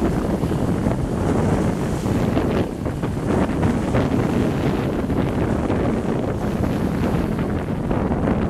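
Wind buffeting the microphone: a steady, loud, low rumble of noise, with no bird calls heard.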